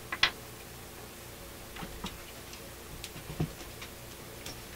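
Scattered light clicks and taps of small parts and tools being handled on a workbench, with a sharp double click just after the start and a soft knock a little past the middle, over a faint steady hum.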